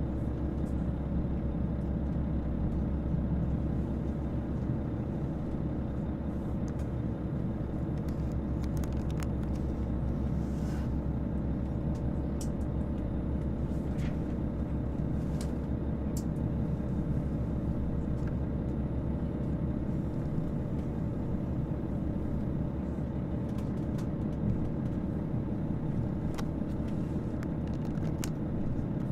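Steady low rumble and hum of a KiHa 281 series diesel railcar's engines idling, heard inside the passenger cabin while the train stands after an emergency stop, with a few faint ticks.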